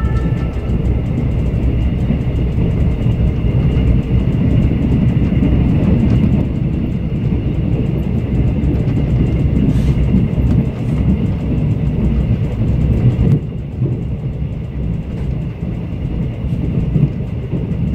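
Mugunghwa-ho passenger train running along the line, heard from inside the coach: a steady rumble of wheels on the track and the carriage in motion. It turns a little quieter and duller about thirteen seconds in.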